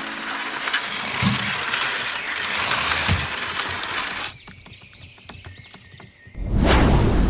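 Cartoon sound effects: a noisy rushing hiss for about four seconds, then a couple of seconds of quieter rapid clicking with a thin high tone, then a loud low rumble that starts near the end.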